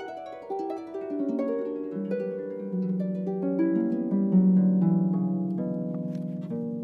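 Solo harp playing a quick run of plucked notes that moves downward, the strings left to ring together so they build into a full sustained chord, which swells to its loudest after about four seconds and then slowly fades.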